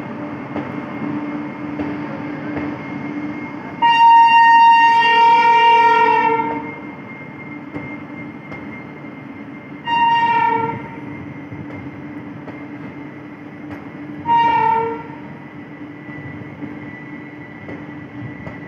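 Locomotive horn of an Indian Railways passenger train sounding one long blast of about three seconds, then two short blasts about four seconds apart, over the steady rolling noise of the coaches passing along the platform.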